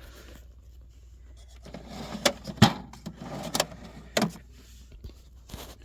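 Tools being handled in a tool chest: a handful of sharp metal clicks and clinks over a faint rustle, the loudest about two and a half seconds in.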